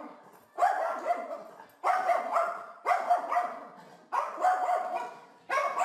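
A dog barking over and over, one loud bark about every second and a quarter, five times. Each bark dies away over about a second.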